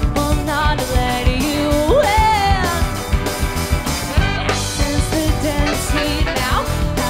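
Live rock band playing: drum kit, bass guitar and electric guitars, with a lead line over the top that slides up and bends in pitch.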